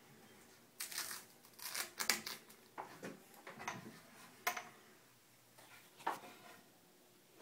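Faint, irregular rustles and light knocks from handling the camera and moving about among the wooden cabin joinery, with one sharper click about four and a half seconds in.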